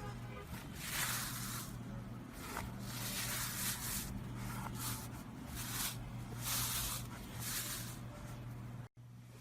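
Slime being squeezed and worked by hand, giving a run of wet, hissing squishes about once a second over a steady low hum; it cuts off abruptly near the end.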